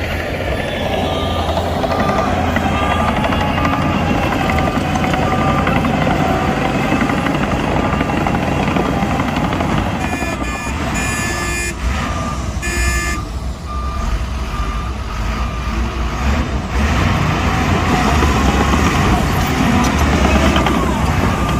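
Heavy diesel machinery running under load, with a reversing alarm beeping steadily at an even pace. Early on the engine pitch rises and falls, and about halfway through there are two brief high squeals.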